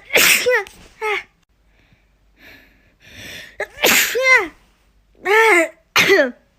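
A woman sneezing several times. The two loudest sneezes come about four seconds apart, each led in by a breathy in-breath. Each sneeze ends in a voiced sound that falls in pitch, and further short voiced bursts follow near the end.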